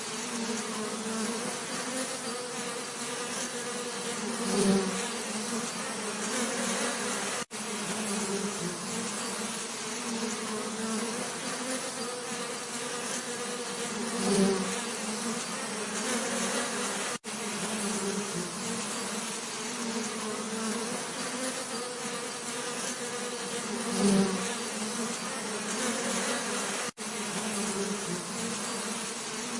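A swarm of bees buzzing in a steady low hum. About every ten seconds a single bee passes close and briefly swells louder, and the sound cuts out for an instant three times.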